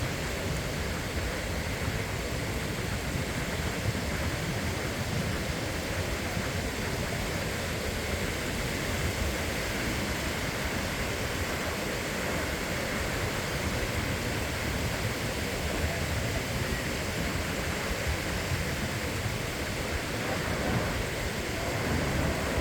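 Sea waves breaking on a beach, heard as a steady wash of surf with no distinct swells.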